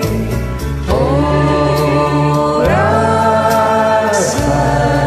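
Singing over a karaoke backing track of a slow ballad, with the voices holding long notes. The pitch steps up with a short glide about two and a half seconds in.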